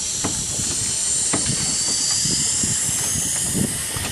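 Steady hiss of wind and moving water around a paddled boat, with wind rumbling on the microphone and a few faint taps.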